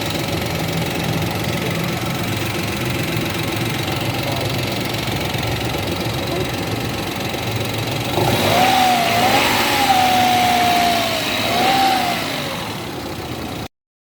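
Toyota Wigo engine running evenly at idle, with no misfire now that the broken injector wire is spliced. About eight seconds in it is revved for several seconds, pitch rising and falling, then settles back, and the sound cuts off suddenly near the end.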